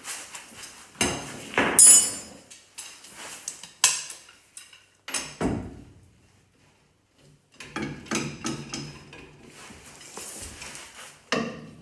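A wrench clanking and clinking on the rear axle's U-bolts and nuts as it is fitted and worked to loosen them. The knocks are irregular, with a loud ringing clank about two seconds in and a short lull around the middle.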